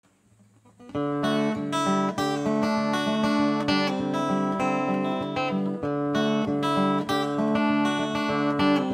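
Strummed acoustic guitar music, the instrumental opening of a song, coming in about a second in after near silence.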